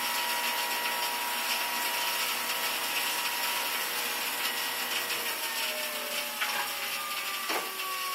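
Electric grain mill running loud and steady, grinding whole wheat berries into flour, a continuous whirring grind with a slight sag in the motor's pitch in the second half.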